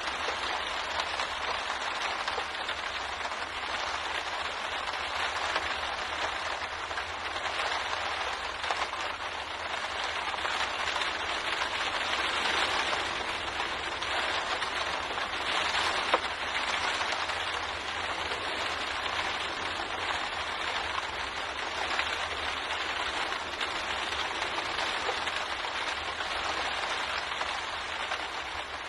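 Steady rain pattering on a window pane, a dense even hiss of drops with scattered individual ticks.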